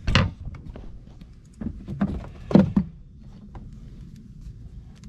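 A few knocks and clunks as a plastic pull-out shower sprayer head on its hose is handled at a boat's transom spigot, the loudest about two and a half seconds in.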